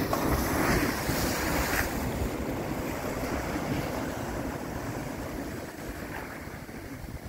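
Sea waves breaking and washing over the rocks of a stone breakwater: a wave crashes at the start and the surf stays loudest for about two seconds, then settles into a steadier wash. Wind buffets the microphone throughout.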